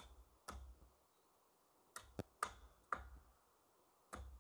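Footsteps, each a dull thud with a sharp crackle, about two a second in short runs of three with pauses between.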